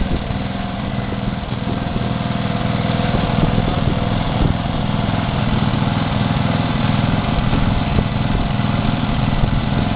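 Small single-cylinder lawnmower engine running steadily, driving a car, with the level rising slightly after about two seconds.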